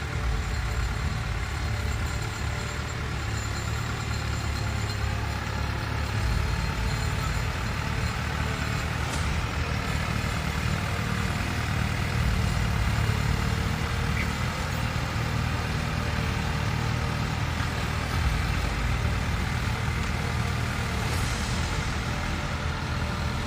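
Farm tractor engine running steadily while pulling a plough through the field, a continuous low rumble.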